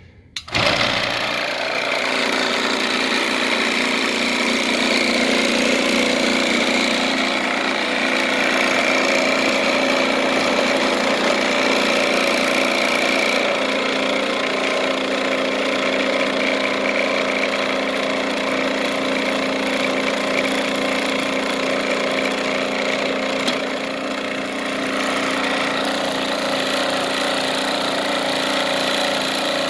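A Chicago Electric 120V vibratory bowl tumbler switched on about half a second in, then running with a steady mechanical buzz as loose granular material rattles and bounces on its metal sieve screen. Partway through, more material is poured onto the vibrating screen.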